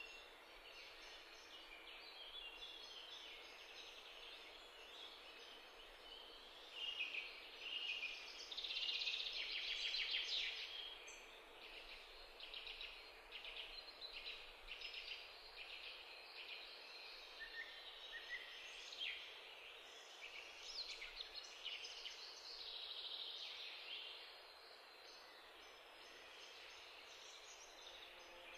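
Egg-filled bread slices frying in oil in a pan: a faint sizzle with dense crackling, louder for a few seconds about a third of the way in.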